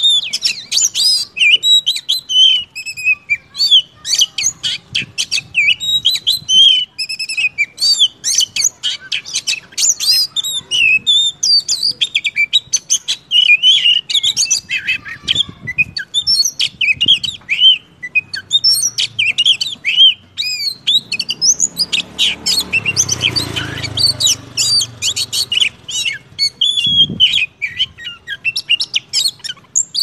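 Oriental magpie-robin (kacer) singing a long, fast, varied song of whistled sweeps and chirps with hardly a pause. A low rumble runs underneath for a few seconds about two-thirds of the way through.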